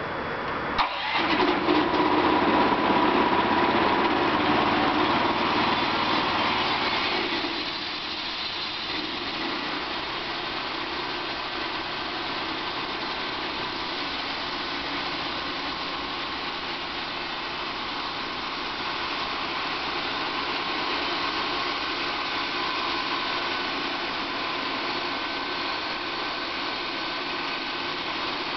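ThinBand portable band sawmill's engine starting about a second in and running loud for several seconds, then settling to a steady, quieter run.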